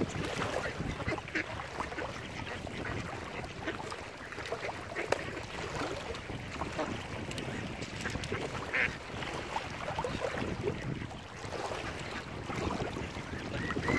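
Mallard ducks quacking at intervals, short scattered calls over steady outdoor background noise.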